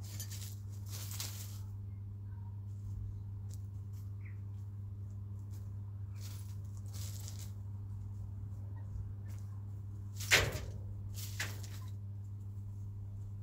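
Chickens in a coop making a handful of short rustling, scratching sounds, the sharpest about ten seconds in and another soon after, over a steady low hum.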